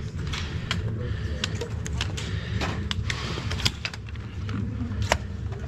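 Irregular sharp clicks and knocks of spring-powered Nerf blasters firing and foam darts striking, the loudest two near the end, over a steady low rumble.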